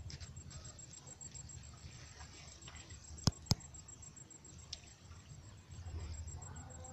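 Faint outdoor ambience with a low steady rumble, broken by two sharp clicks a quarter second apart about three seconds in; faint voices come in near the end.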